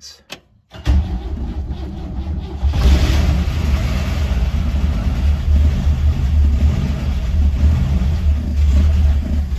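1970 International Scout engine cranking for about two seconds, then catching and running with some revving.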